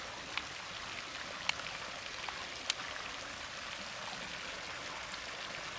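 Steady trickling of running water, with a few sharp ticks.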